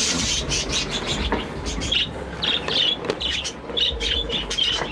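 A flock of budgerigars chirping in quick, short calls, many overlapping, over a low rumble.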